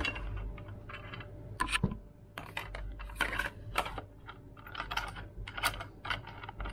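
Irregular light clicks and taps of an acrylic sheet and metal wing-nut hold-down clamps being handled and set on an aluminium CNC bed.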